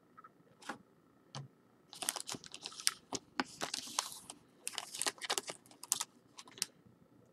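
Trading cards and their packaging being handled: a quick, faint run of clicks and rustles of card stock, starting about two seconds in and stopping shortly before the end.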